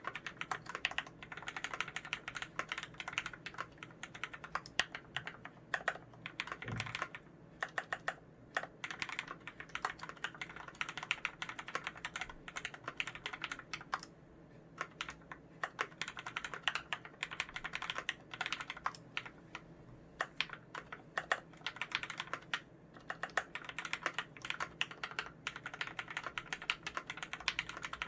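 Continuous typing on a VA108 Mac mechanical keyboard with lubed Cherry MX Red linear switches, lubed stabilizers, GMK keycaps, a steel plate and a plastic case: a quick, steady patter of keystrokes. The typing pauses briefly about seven, fourteen and twenty-three seconds in.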